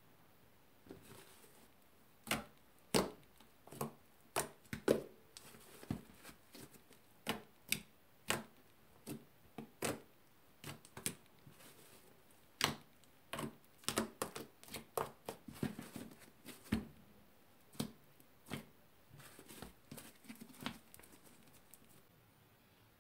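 Thick, dough-like purple slime, reworked with shaving cream, hot water and liquid soap, being kneaded and pressed by hand. It gives irregular sharp clicks and pops, at times several a second, starting about two seconds in and dying away near the end.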